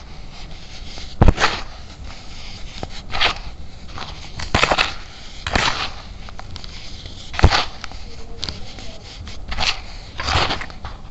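Baking soda squeezed and crushed between the hands: a series of short crunches, about one a second.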